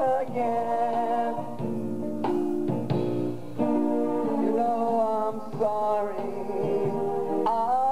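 Music: a male voice singing over instrumental backing, in long held notes with short breaks between phrases.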